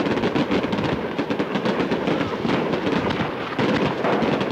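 Daytime aerial firecrackers bursting overhead in a dense barrage: many sharp bangs a second running together into a continuous crackle. The sound is the lo-fi track of a Super 8 sound film.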